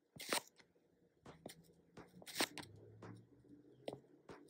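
Faint close-up breaths between spoken phrases, with scattered small clicks and a faint low hum for about a second midway.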